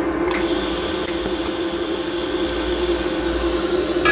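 TIG welding torch hissing as a tack weld is made on a GTP inverter welder set to cold-weld mode. The hiss starts suddenly about a third of a second in and holds steady, over a low steady hum.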